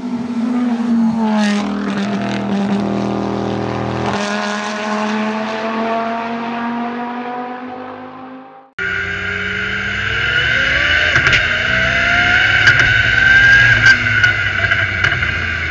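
A produced intro sound effect, a steady low drone under gliding tones that fade out. About nine seconds in it cuts to the in-car sound of a turbocharged race car at full throttle: the engine and turbo give a loud, steady, high whine that rises slowly, with a few sharp clicks.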